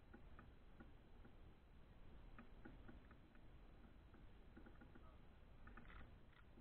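Near silence with faint, scattered ticks and a short cluster of clicks about six seconds in.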